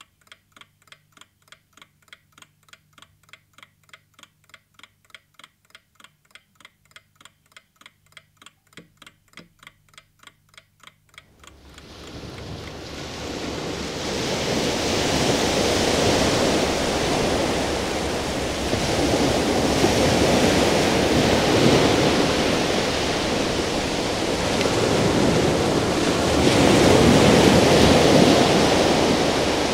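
Rapid, even clicking, about four clicks a second, over a low hum. About eleven seconds in, a loud rushing noise swells in and carries on, rising and falling like surf.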